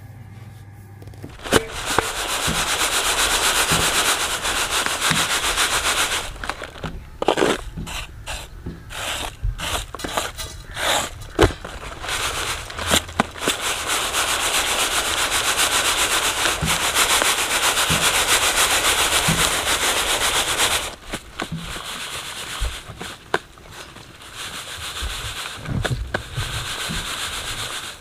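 Coarsely ground roasted wheat rustling and hissing as it is shaken in a bamboo winnowing basket (chhaj), sifting out the coarse pieces and husks. Long stretches of steady rustling are broken by sharp knocks and taps, and the rustle goes quieter for the last several seconds.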